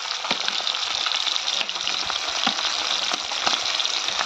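Chunks of food frying in hot oil in a wok: a steady sizzle with scattered pops and crackles.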